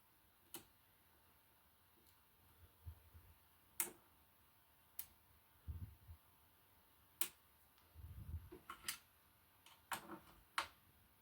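Sharp single clicks at irregular intervals, about seven in all, with three brief low thuds between them, over a faint steady hum: switches being flipped on a modified Fender Champion 600 amplifier.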